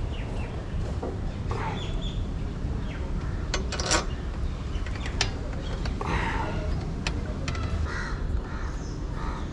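Crows cawing a few times over a steady low background rumble, with a few sharp clicks about four seconds in.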